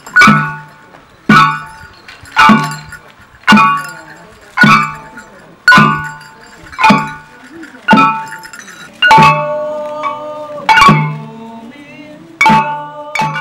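Small hand-held gongs (kane) of a kane-odori folk dance struck about once a second with a drum beat under each stroke, every stroke ringing out with a bright metallic tone that dies away before the next. The beat slows slightly near the end.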